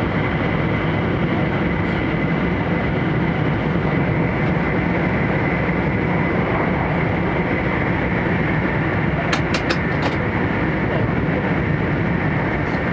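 Steady running noise of an E4 series Max double-decker Shinkansen at speed, heard inside the upper-deck Green Car: a dense rumble and rush with a faint steady high whine. About nine seconds in come four quick clicks.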